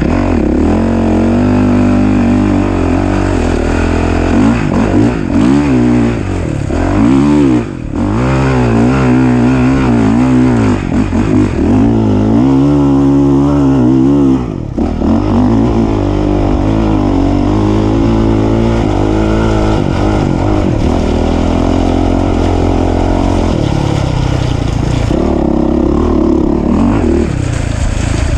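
Off-road race vehicle's engine under hard throttle, revving up and falling back again and again, with short lifts of the throttle about a third and half of the way through.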